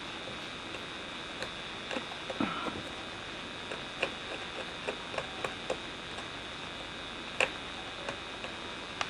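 Fine carving knife cutting into a small wooden netsuke figure held in the fingers: irregular light ticks and clicks as the blade nicks and scrapes the wood, with one sharper click a little over seven seconds in, over a steady hiss.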